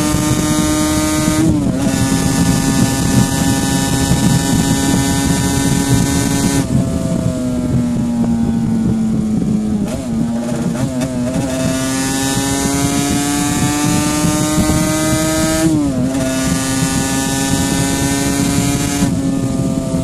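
1984 Yamaha RD500's liquid-cooled 499 cc two-stroke V4 running at speed, heard onboard with wind rush. The engine note steps down in pitch about a second and a half in and again near the end. In the middle it thins and sinks, then climbs steadily again.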